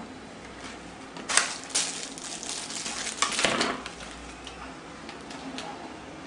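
Paper rustling and crinkling as a folded paper sheet from the box is handled and opened out, in a few short bursts, the loudest about a second and a half in and again just past three seconds.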